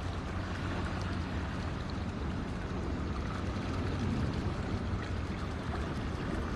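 Floodwater of the swollen Delaware River rushing past the bank, a steady even water noise, with a steady low hum underneath.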